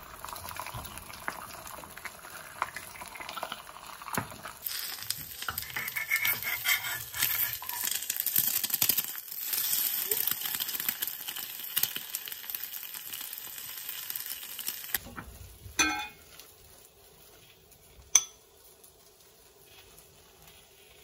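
An egg frying in a cast-iron pan, a steady sizzle that gets brighter and louder about four seconds in. About fifteen seconds in it gives way to a quieter stretch with a couple of sharp clinks of a metal spoon against a cast-iron pot as cooked rice is scooped.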